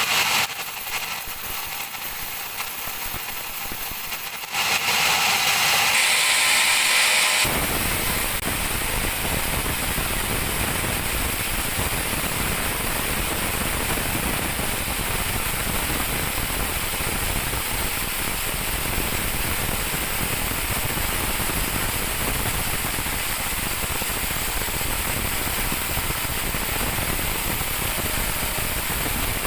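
Sawmill bandsaw running through a teak log. For the first seven seconds or so it is a thin, high-pitched noise, then a steady, full mechanical noise across all pitches.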